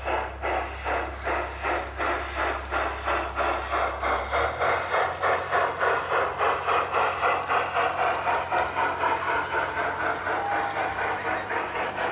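G-scale LGB Sumpter Valley model steam locomotive running past, its steam sound chuffing steadily at about three beats a second over the rumble of its wheels and the freight cars rolling on the brass track.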